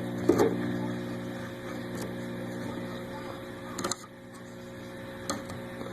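1967 Fender Bassman amplifier putting out nasty 60-cycle mains hum with the guitar channel at 10, caused by the output transformer leads bundled against the input jack wiring. Clicks and scrapes as the wires are pulled apart, and the hum drops noticeably about four seconds in.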